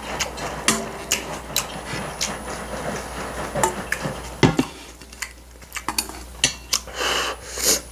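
Metal chopsticks clinking and scraping against a stainless steel bowl of noodles, in many short, irregular clicks.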